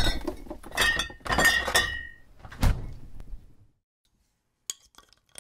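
Title-sting sound effect of crashing, breaking impacts: four hits in about three seconds, each with a short ringing tail, dying away about three and a half seconds in. A few faint clicks come near the end.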